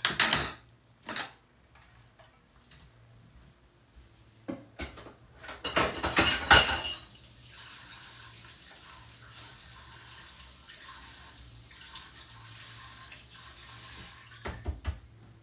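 Dishes, bowls and utensils clattering as they are cleared off a kitchen table. This is followed by a steady hiss of running water lasting about seven seconds, and a last clatter of dishes near the end.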